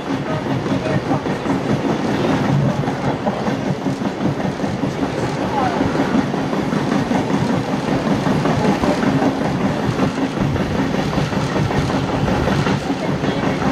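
Heritage passenger carriages' wheels running on the rails, heard from an open window inside the moving train: a steady rumble with close-packed clicks from the wheels.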